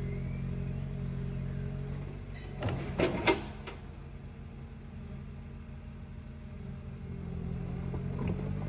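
Tracked forwarder's diesel engine running steadily as its hydraulic crane works. A cluster of sharp knocks about three seconds in as the grapple sets a log onto the load. The engine then eases off and builds again near the end.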